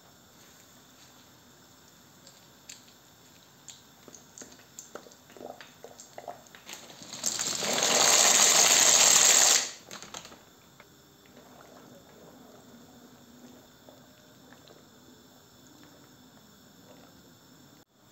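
Dry pasta shells poured into a pot of boiling water: a loud rush of rattling and splashing lasting about two and a half seconds, starting about seven seconds in. Scattered light clicks and taps come before it, and the water bubbles quietly throughout.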